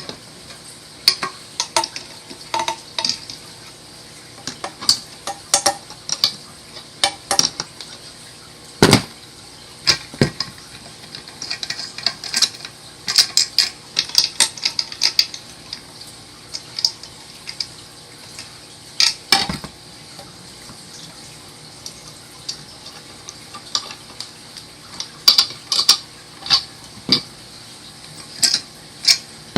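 Irregular metallic clicks and clinks of a socket wrench working the bolts off the back of a train-horn assembly, with metal parts knocking together. The clicks come in scattered clusters, thickest in the middle and near the end.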